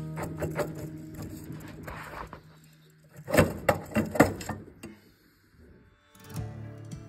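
Background music fading out, then a burst of sharp metal clanks and knocks about three to four and a half seconds in as the rusty exhaust pipe is worked off the cylinder head of a Citroën 2CV flat-twin engine. The music comes back near the end.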